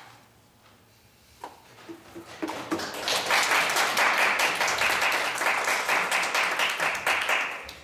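Audience applauding, starting about two and a half seconds in and stopping shortly before the end.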